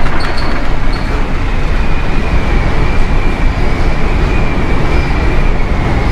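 Loud, steady rumbling noise aboard a ship in a storm, with a few short high beeps in the first second and a faint high whistle from about a second and a half in.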